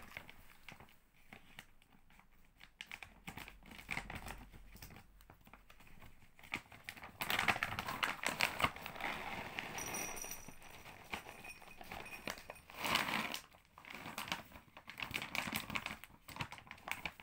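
A plastic bag of dry cat food crinkles and rustles as it is opened and handled. About seven seconds in, dry kibble pours into a bowl with a dense rattle of pellets. Toward the end a cat crunches the dry kibble, making scattered clicks.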